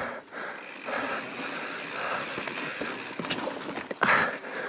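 A 2020 YT Izzo mountain bike ridden slowly over sandstone slickrock and dirt: a rough, uneven noise of tyres and drivetrain that swells and dips, with a sharp click about three seconds in.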